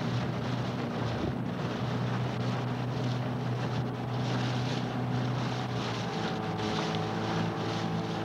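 Motorboat engine running steadily, with wind noise on the microphone. The engine note shifts about six seconds in.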